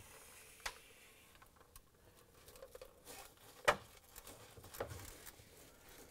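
Faint handling noise of gloved hands fitting a plastic refrigerator water filter housing into the liner: soft rubbing with a few light plastic clicks and knocks, the sharpest about three and a half seconds in.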